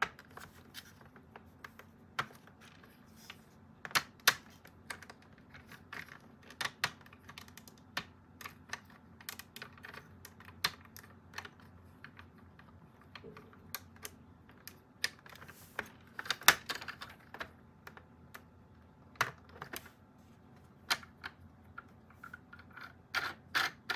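Irregular small plastic clicks and taps as fischertechnik gears, axles and building blocks are handled and pushed into place on a plastic baseplate.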